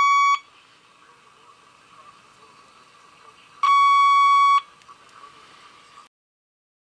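Buzzy high test tone from a transistor radio's speaker as a signal injector probe feeds its signal in at the volume control, sounding loudly twice for about a second each with the tone faintly audible in between. It cuts off about six seconds in.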